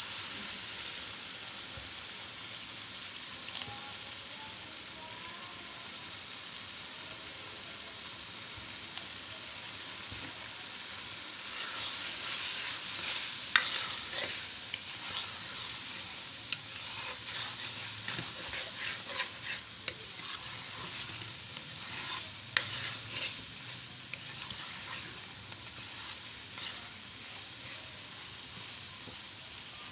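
Eggs frying with a steady sizzle on onions, tomatoes and green peppers in a metal pan. About twelve seconds in, a metal spoon starts stirring and scraping against the pan, with many sharp clicks over the sizzle.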